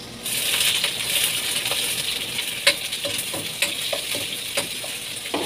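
Onion tipped into hot oil in a stainless-steel pan sizzles loudly, starting about a quarter second in and slowly dying down. A metal spoon clinks and scrapes against the pan several times as it stirs.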